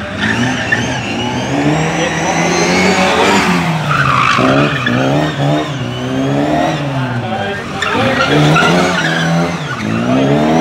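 Classic Mini's engine revving up and falling back again and again as it is thrown around a cone course, with tyres squealing in the turns, loudest about four seconds in.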